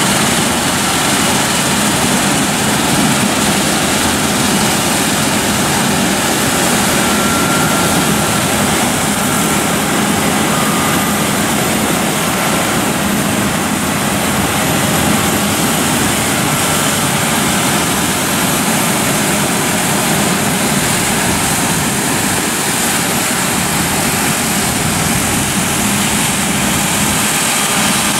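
Claas Lexion 7500 Terra Trac combine harvester threshing soybeans: its engine and threshing machinery running steadily under load, a dense, even drone.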